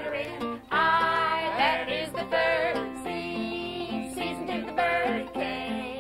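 Upbeat children's folk song: voices singing over strummed acoustic guitar and banjo, with a steady bouncing beat.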